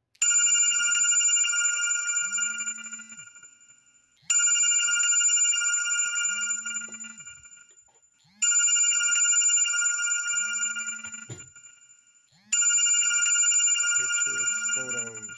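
An electronic chime melody like a phone ringtone. A bright bell-like note sounds about every four seconds, rings and fades, with short low notes in between.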